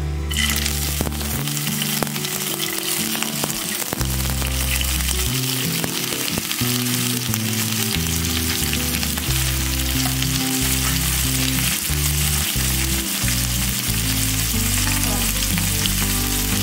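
Paneer cubes frying in hot mustard oil: a dense sizzle that starts suddenly as the first pieces go in, with many small crackles and spits throughout.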